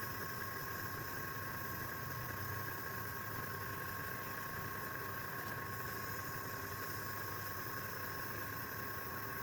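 Steady mechanical hum with an even hiss and a constant high whine, unchanging throughout, like a running electric motor.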